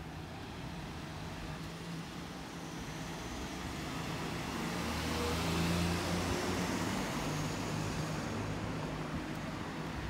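Cars passing close by on the road, engine and tyre noise swelling to its loudest about halfway through and then easing off a little.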